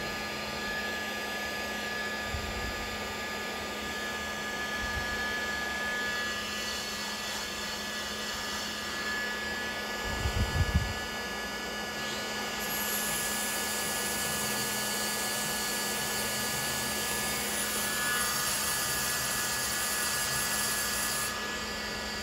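Heat gun running steadily, its fan blowing air through a long flexible metal extension tube while it warms up to full heat before shrinking a hose clamp. A few low bumps come about ten seconds in.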